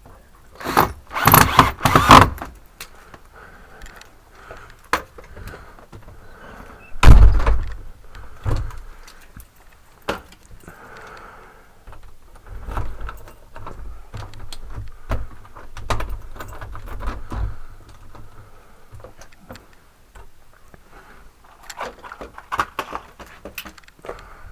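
Door and lock hardware being worked by hand: a quick run of sharp metallic clicks and rattles, a heavy thud about seven seconds in, then scattered clicks and knocks.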